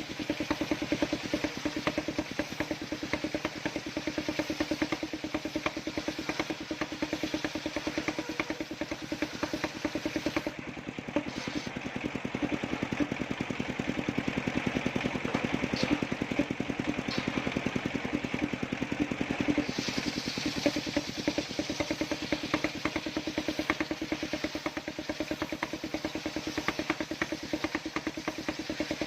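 Small engine running steadily, driving a homemade circular-saw sawmill, with a rapid even firing pulse. For about nine seconds in the middle the sound changes, its hiss dropping away and the middle of the sound getting stronger.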